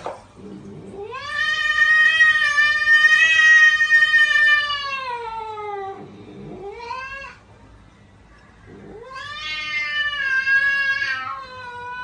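A cat yowling in long drawn-out calls: one held for about five seconds and sinking in pitch at its end, a short rising call, then another long call near the end.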